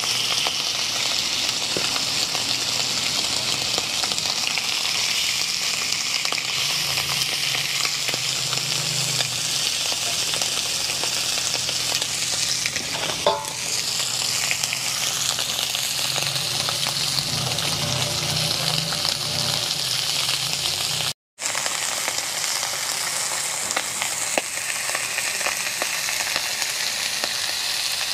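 Seasoned barracuda pieces sizzling steadily as they fry in hot oil in an aluminium frying pan over a charcoal fire, with one light knock about halfway through.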